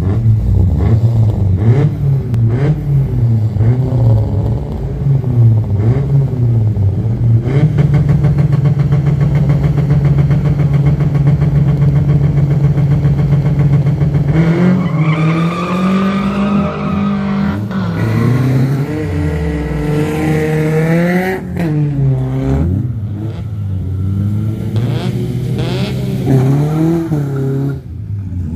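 Car engine revving at a drag-strip start line: blipped up and down for several seconds, then held at a steady high speed for about seven seconds. Then it climbs in pitch as the car accelerates hard, with a second sharp rise a few seconds later.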